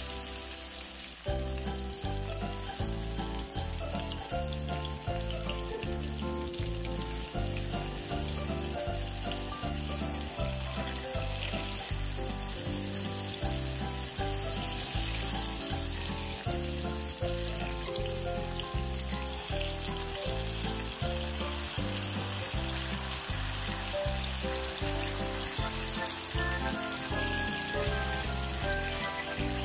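Oil sizzling steadily as turon (banana and jackfruit spring rolls) deep-fry in a wok. Background music with a steady beat plays over it.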